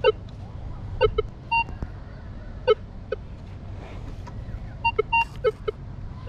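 Minelab Vanquish 540 metal detector giving target tones as its coil sweeps over sand: about eight short low beeps at irregular intervals, with three longer, higher-pitched tones, two of them close together in the second half.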